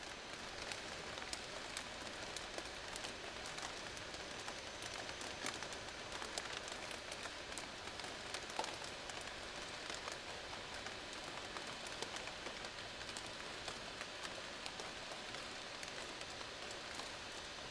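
Dense, steady crackling of many connected plastic shopping bags, the thin plastic crinkling as the bags fill and empty with air.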